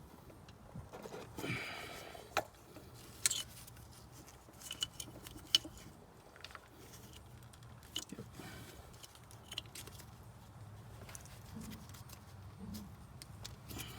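Scattered light metallic clicks and clinks of hand tools and parts being handled while ignition coils and spark plugs are fitted, with a brief scrape about a second and a half in and a faint steady low hum underneath.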